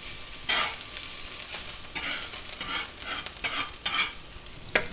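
Chopped onions and green peppers sizzling on a cast iron griddle as they are stirred, with a series of short scraping strokes across the pan and a sharp click near the end.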